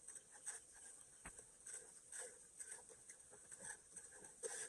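Faint, irregular splashing and sloshing of shallow floodwater stirred by a small hand rake and wading feet.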